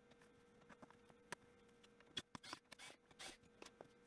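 Faint scattered clicks and a few short scrapes from hands and tools handling the multimeter's plastic case and screws while it is taken apart, the loudest scrapes a little past halfway, over a faint steady hum.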